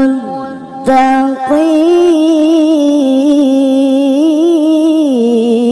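A male voice reciting the Qur'an in melodic tilawah style, drawing out a vowel in a long ornamented melisma with a wavering pitch. It breaks off briefly just after the start, gives a short note about a second in, then holds one long note from about a second and a half that slides lower near the end.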